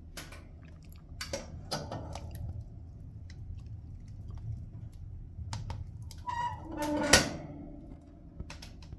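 Scattered clicks and knocks over a low hum, with a short creak and a sharp knock about seven seconds in.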